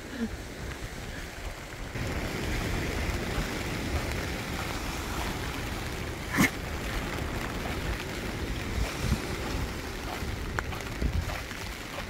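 Strong sea wind buffeting the microphone over the steady rush of surf, a little louder about two seconds in. One sharp knock about halfway through.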